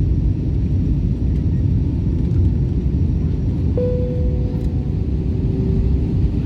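Steady low roar of a jet airliner's cabin in flight, heard from a seat beside the wing. About four seconds in, a steady tone starts, then steps down to a lower one.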